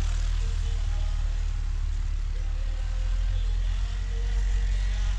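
CFMoto CForce 600 ATV running while being ridden: a steady low rumble with an even hiss over it.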